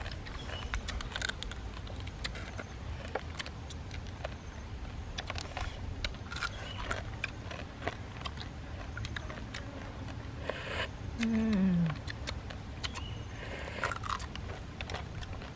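Boiled crab shells being cracked and picked apart by hand and chewed, giving scattered sharp clicks, snaps and crunches. About eleven seconds in, a short falling vocal hum stands out as the loudest sound.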